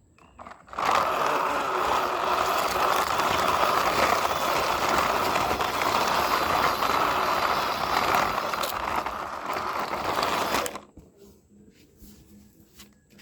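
Gritty scraping and rushing of sand moved by plastic toy vehicles, steady for about ten seconds before it stops suddenly, followed by a few faint clicks.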